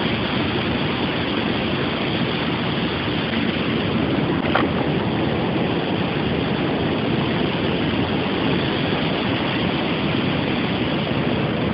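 Steady rushing of river water flowing over a shallow, rocky riffle, with a single click about four and a half seconds in.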